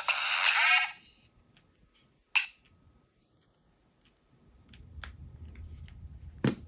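The last notes of a Nokia N97 ringtone die away within the first second, played through the phone's speaker. Then comes a single short blip, a few faint clicks, a low rumble of handling noise and a sharp click near the end.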